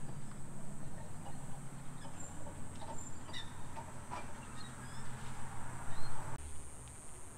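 Street ambience: a steady low mechanical hum with short bird chirps over it, the background changing abruptly near the end.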